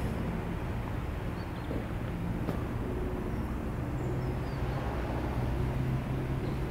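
Steady low hum of vehicle engine noise, with a few faint, short high chirps over it.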